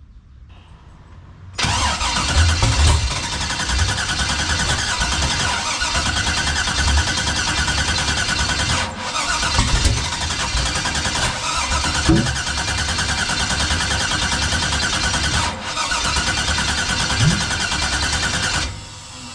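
Starter cranking the 1989 Chevy's engine for about seventeen seconds, with two brief breaks, before it stops. The engine turns over but never fires and runs: a no-start, though the owner reports it is getting spark and fuel.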